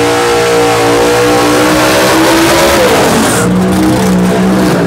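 Drag race car's engine revving hard and held at a high, steady pitch, then falling in pitch about three seconds in as the car passes close by, followed by a lower engine note.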